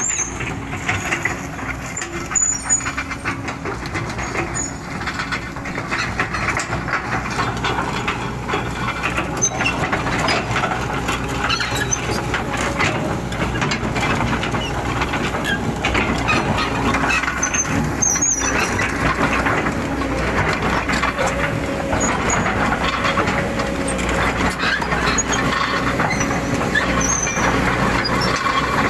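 JCB excavator's diesel engine running steadily under load, with frequent clanks and knocks from the working machine and a short whine about three quarters of the way in.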